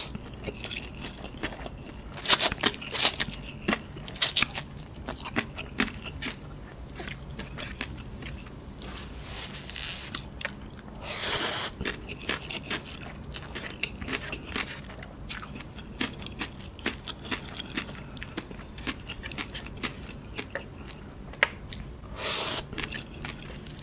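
Close-miked chewing and lip-smacking of a mouthful of cooked instant noodles eaten by hand, with a steady patter of small wet mouth clicks. A few louder slurps come as strands are drawn in: about two seconds in, near the middle and near the end.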